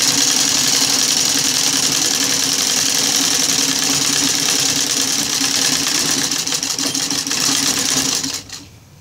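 Sewing machine running fast and steady, stitching a hem through coarse sack fabric, then stopping about eight seconds in.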